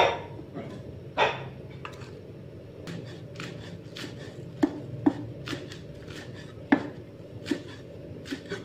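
Cleaver chopping spring onions on a wooden chopping block: an uneven run of knocks of the blade on the wood, a few much louder than the rest.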